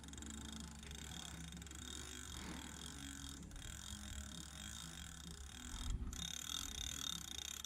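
Fishing reel being worked during a fight with a fish, its gears and ratchet clicking faintly over a low steady rumble; a louder low bump about six seconds in.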